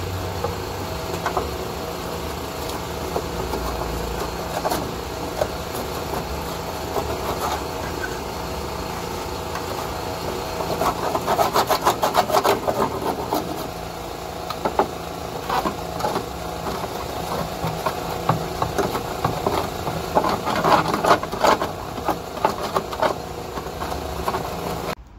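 Angle grinder running steadily, grinding and cutting away the rusted steel outer sill of a VW T25 van, with harsher, rattling stretches about halfway through and again near the end. It cuts off suddenly just before the end.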